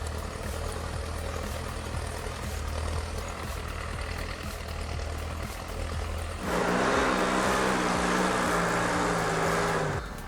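Zetor Crystal 12245 tractor's diesel engine running with a steady low drone. About six seconds in it turns much louder and higher-pitched for a few seconds, then drops back shortly before the end.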